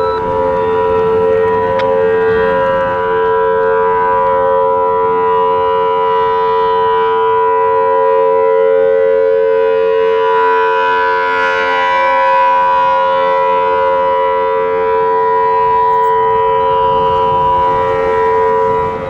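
Federal Signal Thunderbolt 1000T outdoor warning siren sounding a loud, steady tone that holds its pitch without rising or falling. This is the steady alert signal used for tornado-watch tests.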